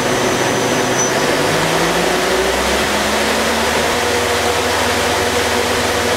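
Femco HL25N CNC lathe spindle and 8-inch three-jaw chuck spinning up from 2,500 toward 4,800 RPM. The whirring hum rises in pitch over the first few seconds, then holds steady at top speed.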